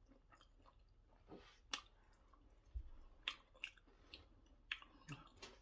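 Faint close-up chewing of soft, sticky white starch and egusi soup, with scattered wet lip smacks and mouth clicks.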